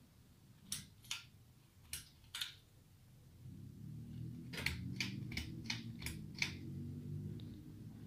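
Bowl-hugger ceiling fan's pull-chain switch clicking as the chain is pulled, four sharp clicks in pairs. About three and a half seconds in, the fan motor starts with a low steady hum and rumble, and a run of about six quick light ticks sounds over it.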